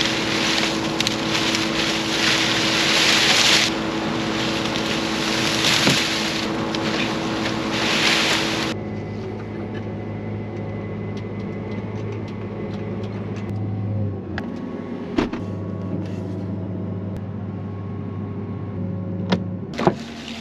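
Combine harvester running: a loud, rushing machine noise over a steady hum that cuts off abruptly about nine seconds in, leaving a quieter, steady engine drone with a few sharp clicks.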